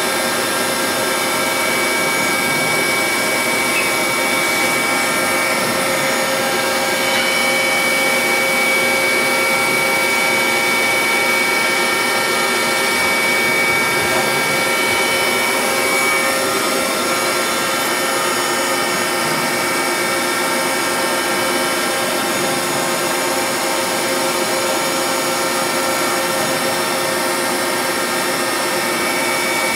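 Milltronics RH-25 rigid-head CNC mill running a program: the spindle turns and the end mill cuts a metal block, a steady machining noise with several steady whining tones that holds even throughout.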